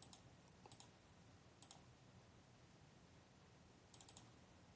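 Near silence broken by faint, sharp clicks in four small clusters, the first three within the first two seconds and the last about four seconds in.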